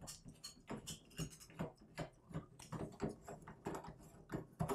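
Old fixed shower head being unscrewed by hand from the metal shower arm: a run of faint, irregular clicks and ticks from the threaded fitting and the head turning, a few a second, with a slightly louder click near the end.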